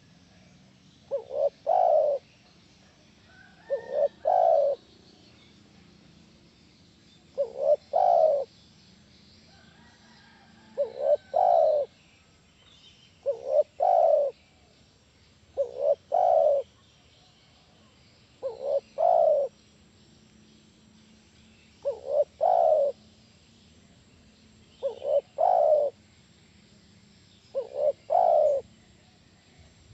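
Spotted dove (tekukur) cooing: a phrase of two or three notes, the last one longest, repeated about every three seconds.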